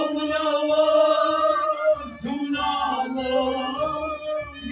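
Men chanting an Islamic devotional recitation together in long drawn-out notes. The voices glide up into the first held note, and a new phrase starts about two seconds in.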